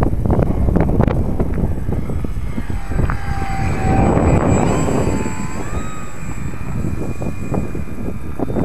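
Strong wind buffeting the microphone. About three seconds in, the whine of a ParkZone Visionaire's electric motor and propeller comes in, rises in pitch, and fades a few seconds later.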